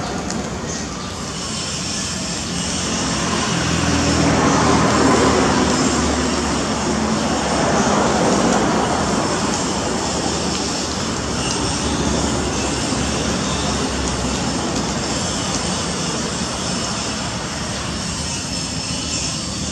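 A steady engine drone that swells louder from about three to nine seconds in, then eases off to a lower steady level.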